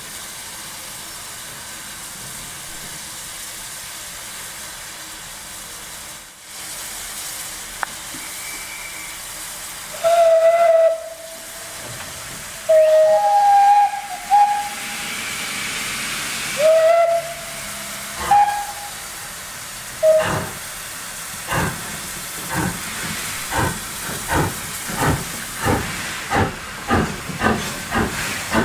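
A pair of steam locomotives led by ex-L&YR Class 23 saddle tank 51456: a steady hiss of steam, then several long whistle blasts at two pitches, one lower and one higher, answering each other. About twenty seconds in, the exhaust beats start slowly and quicken to about two a second as the train pulls away.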